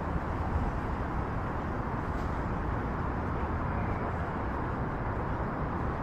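Steady outdoor city background noise: an even low rumble with a hiss over it, like distant traffic.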